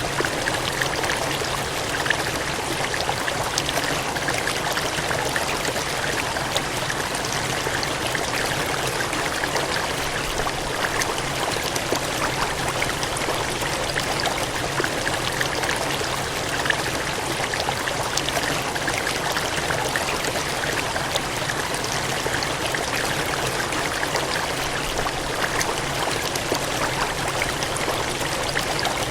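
Gushing, cascading water, a steady, even rush with fine splashing flicker and no change throughout.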